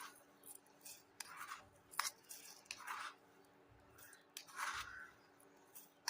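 Soft scraping and rubbing as the bread mixture is mashed and mixed in a bowl, in short irregular strokes with a few sharp clicks.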